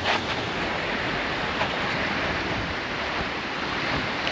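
Steady rushing of a river in flood, its swollen brown water running fast and high past the bank.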